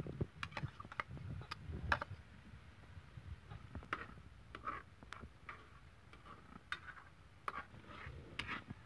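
Spoon and spatula clicking and scraping against a bowl and a wok as sliced okra is tipped in and stirred with pork liver: faint, irregular light taps and knocks, a few with a short metallic ring.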